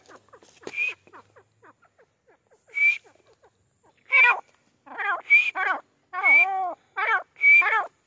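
Grey francolin calling: two single short high notes about two seconds apart, then from about four seconds in a quick run of notes that rise and fall in pitch, about two a second, many starting with a sharp high pip.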